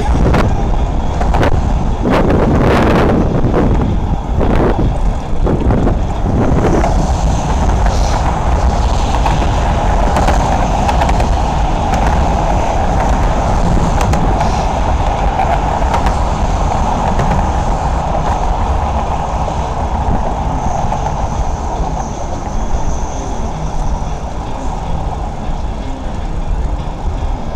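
Steady road and wind noise from a vehicle travelling at speed, with a constant mid-pitched hum. Several short thumps or gusts come in the first few seconds.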